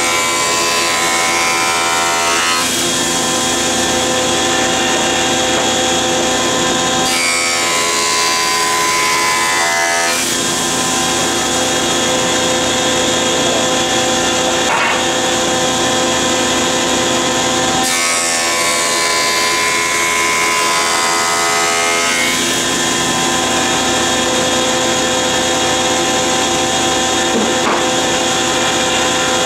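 A jointer running with a steady whine, its cutterhead planing a board of sipo mahogany. There are three passes, each a couple of seconds of louder, rougher cutting noise over the steady machine sound.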